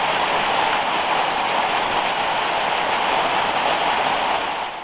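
Steady rain falling on the forest, an even hiss that fades out at the very end.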